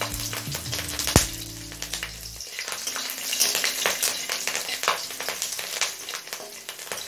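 Whole green chillies frying in hot mustard oil in a kadai: a steady sizzle with many sharp spattering pops, the loudest about a second in.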